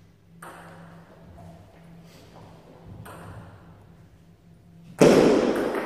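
Celluloid table tennis ball clicking faintly off paddles and table during a rally, over a steady low hum, then a sudden loud burst of sound about five seconds in as the point ends.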